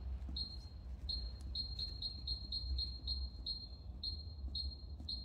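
Short high electronic beeps from a Continental Girbau washer's Inteli Control keypad, one for each press as the arrow key is tapped over and over to scroll through the letters, about two to three a second with small gaps. A low steady hum runs underneath.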